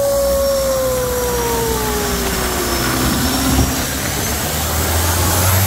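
Boat engine running: a steady low drone with a whine that falls slowly in pitch over the first three seconds or so, as the engine eases off.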